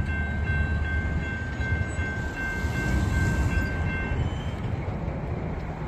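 Railroad crossing bell ringing steadily, stopping about four seconds in as the crossing gates rise after the train has cleared. Under it runs the low rumble of the departing freight train.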